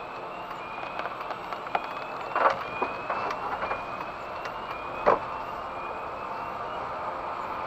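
Inside a car on the move: steady road noise, with a faint tone that rises slowly and repeats about once a second. A few sharp knocks stand out, the loudest about two and a half and five seconds in.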